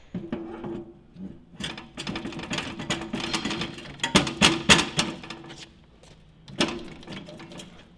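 Pasquali XB40 petrol walking tractor driving slowly forward under the clutch onto the tiller's quick hitch: a steady mechanical hum starts abruptly, with dense metallic rattling and clatter from the drive and coupling. A sharp clunk comes about six and a half seconds in as the hitch is pushed hard home.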